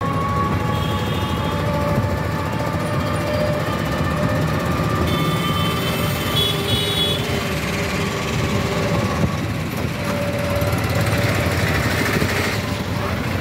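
Busy street traffic: engines of passing auto-rickshaws, scooters and cars running with a steady low rattling rumble, and short high horn beeps about a second in and again around five to seven seconds in.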